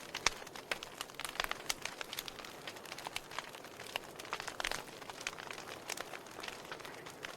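Wood fire in a fireplace crackling, with irregular sharp pops and snaps of varying strength over a soft steady hiss.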